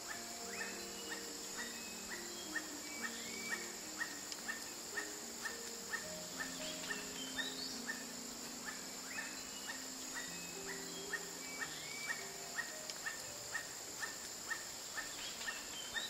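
A toucanet calling a short note over and over, about twice a second, with a steady high insect hiss behind it.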